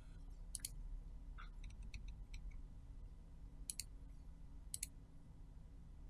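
Computer mouse clicking a few times, faint and sharp, over a low steady background hum.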